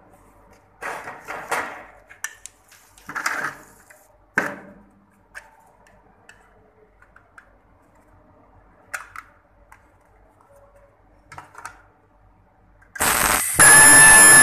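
Plastic parts being handled and set into a welding fixture, with short rustles and knocks. Near the end the ultrasonic plastic welder fires as its horn presses on the part: a sudden loud sound with several steady high-pitched tones.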